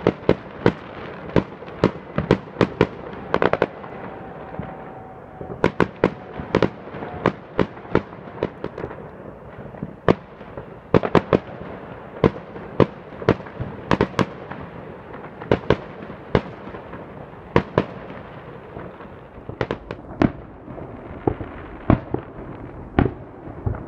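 Fireworks display going off: a long, irregular run of sharp bangs, often several in quick succession, over continuous crackling. A faint, thin whistle comes in about four seconds in and fades out a few seconds later.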